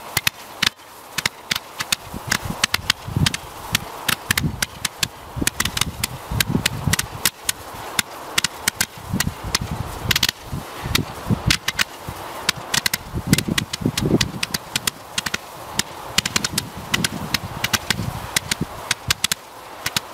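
Green Parade candle, a multi-shot firework candle, firing green stars in quick succession: a dense run of sharp pops and cracks, with heavier thumps every second or two.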